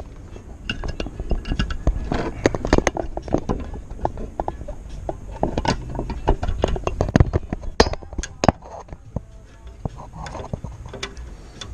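Irregular metal clicks, clinks and knocks of hand tools and a horn bracket being handled and fitted.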